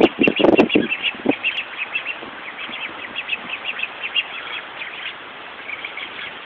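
Young ducks calling: a steady run of rapid, high peeps, with a few louder, lower calls in the first second, over a constant hiss of hurricane wind.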